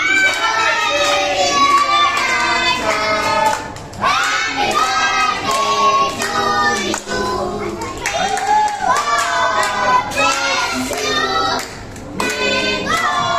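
A group of children singing a song together, with hands clapping along.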